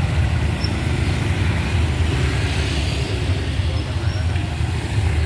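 Steady low rumble of a motor vehicle on the move, most likely a motorbike ridden through traffic.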